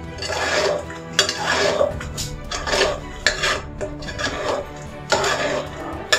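Metal spoon stirring and scraping chopped bottle gourd curry in an aluminium pressure cooker, about two strokes a second, clinking and scraping against the pot's sides and base.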